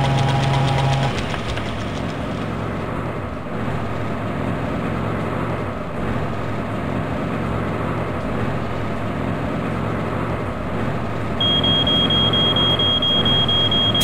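Garbage truck engine sound effect, running steadily with a low rumble. A steady tone stops about a second in, and a high steady tone starts near the end.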